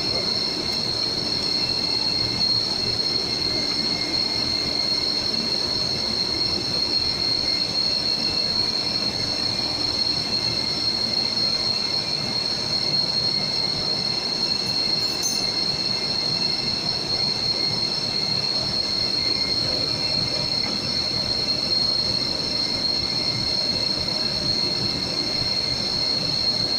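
A steady high-pitched machine whine over constant mechanical noise, unchanged throughout.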